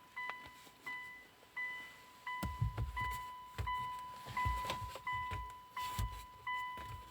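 A warning chime dings over and over, about once every 0.7 s. From about two and a half seconds in, the 2.0-litre diesel engine of a 2008 Hyundai Tucson turns over on its starter with a rhythmic low pulsing and does not fire: a crank-no-start with fault code P0340, a camshaft position sensor circuit fault, while no engine speed registers.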